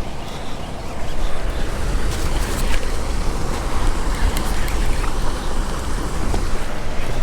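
Wind buffeting the microphone: a steady low rumble under a broad rushing noise, with a few faint ticks.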